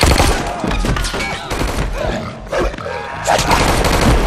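Rapid gunfire in a film fight scene, shots in quick succession, loudest at the start and again near the end.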